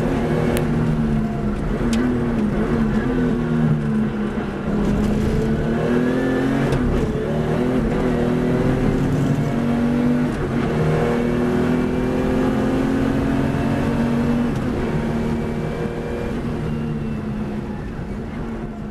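Racing car engine heard from onboard at speed, its note climbing and then dropping several times as it goes through the gears. The sound fades down near the end.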